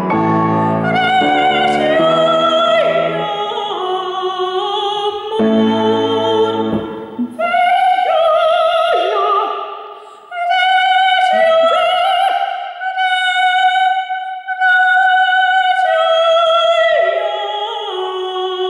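Female operatic soprano singing with a wide vibrato and long held high notes, with a piano playing chords under the voice for the first several seconds. She breaks briefly for breath about ten seconds in.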